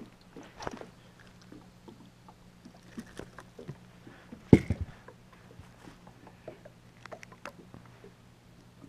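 Handling noise as a small largemouth bass is held and unhooked in a boat: scattered light taps and clicks, with one sharp knock about four and a half seconds in, over a faint steady low hum.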